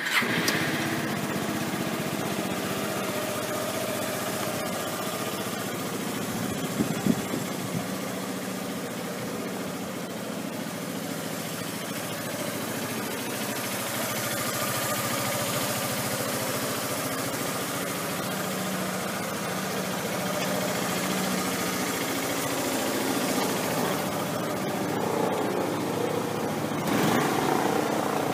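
Yamaha Maxam 250 cc single-cylinder four-stroke scooter engine idling steadily just after starting, heard through its stock muffler. Near the end it gets louder and uneven as the throttle is blipped.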